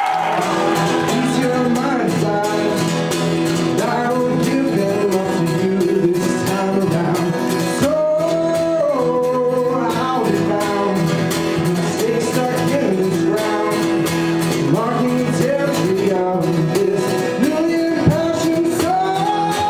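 A man singing while strumming an acoustic guitar, in a solo vocal-and-guitar song.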